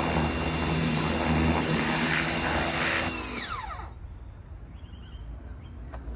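Pressure washer running with a steady high whine and spray hiss, then shut off about three seconds in, its whine falling in pitch as the motor winds down, leaving a low hum.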